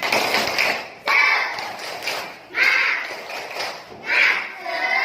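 Several voices calling out together in four short, loud bursts.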